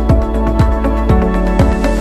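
Background music with a steady kick-drum beat, about two beats a second, over held tones; the beat drops out at the very end.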